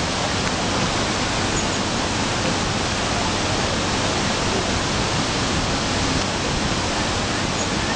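Floodwater of a swollen river rushing and churning in a steady, even wash of noise.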